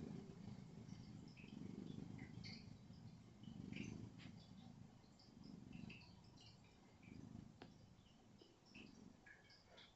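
A sleeping cat snoring softly: a low rumble that swells with each breath, roughly every two seconds, growing fainter toward the end.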